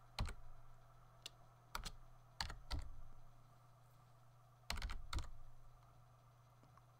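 Computer keyboard being typed on slowly: about eight separate keystrokes in small clusters with long pauses between, as a hard-to-spell word is entered. A faint low steady hum lies underneath.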